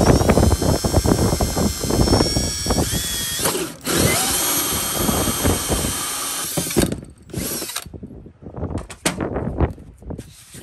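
A drill spinning a Craftsman hole saw through the golf cart's body panel, cutting with a high whine over grinding. The run has a short break a little before four seconds and stops about seven seconds in, followed by a few short, quieter sounds.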